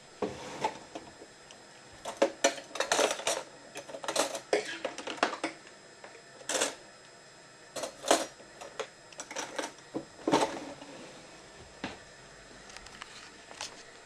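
Crockery and cutlery clinking and knocking as a kitchen is tidied: an irregular run of sharp clicks and clatters, thinning out to faint ticks near the end.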